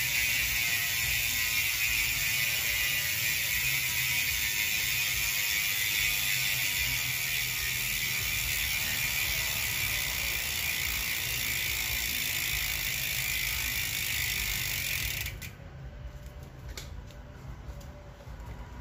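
Mountain bike rear freehub ratcheting in a fast, steady buzz as the rear wheel spins freely. It cuts off abruptly about 15 seconds in, leaving a few faint clicks.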